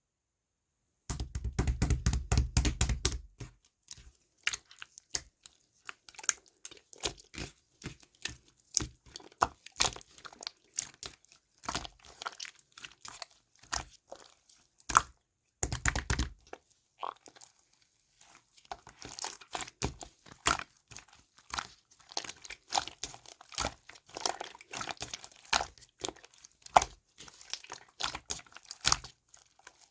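Slime with a whipped-cream topping being pressed and played with by hand: a dense run of small crackling clicks and pops. There are two heavier, fuller stretches, about a second in and around the middle.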